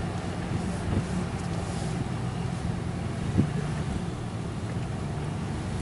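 Ram 1500 Laramie pickup's engine running at low, steady revs, heard from inside the cab as the truck creeps along an off-road trail. A single light knock about three and a half seconds in.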